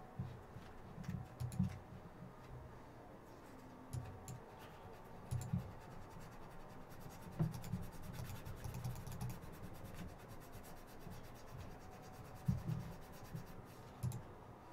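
Faint handling noise at a desk: scattered soft bumps and rubbing, a few sharp clicks, and a quick run of fine, evenly spaced clicks from about seven to ten seconds in.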